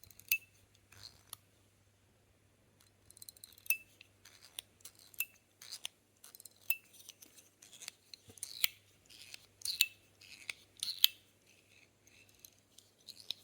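Metal fidget toy worked in the hand: irregular sharp metallic clicks and snaps, several with a brief high ring, coming thicker in the second half.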